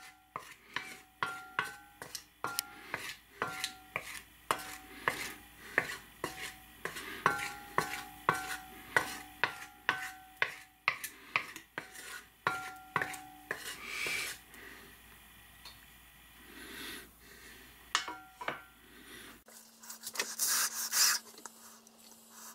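Wooden spatula scraping and knocking around the inside of a cast-iron roaster, about two strokes a second, each stroke leaving a short ring from the pot as it spreads hot, thickened oil during seasoning. The stirring stops about two-thirds of the way in, and after some quieter handling a steady low hum comes in near the end.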